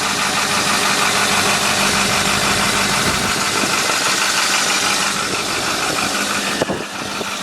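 A 2010 Ford F-450's turbo-diesel engine idling steadily, with a constant low hum under a dense, even noise.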